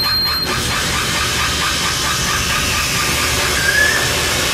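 Harsh electronic noise from a live noise set's pedals and analog electronics. About half a second in, a pulsing texture gives way to a dense, loud hissing wall of noise. A brief rising whistle comes near the end.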